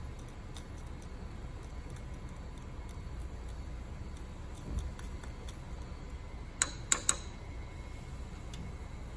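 Glass stirring rod clinking lightly against a glass beaker of solution during stirring, then three sharper glass taps about seven seconds in.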